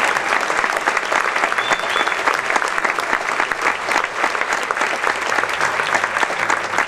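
Crowd applauding: many hands clapping steadily and densely, without a break.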